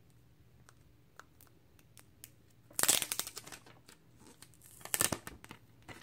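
Packaging crinkling and rustling as the adapter is handled, in two short bursts about three and five seconds in, with a few faint clicks in between.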